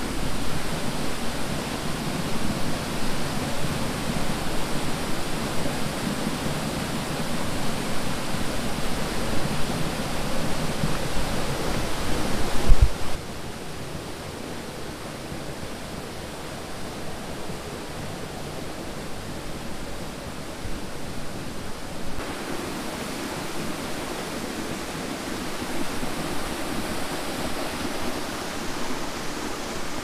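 Steady rush of a tall waterfall pouring onto rocks. About 13 seconds in there is a thump, and the rush drops abruptly to a quieter, steadier level.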